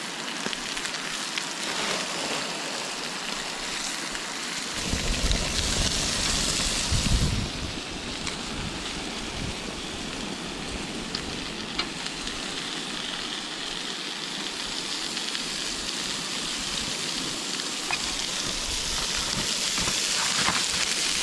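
Beef short ribs and a whole fish sizzling on the grates of a portable gas grill as they are reheated: a steady hiss. There are a few light clicks of metal tongs, and a brief low rumble about five to seven seconds in.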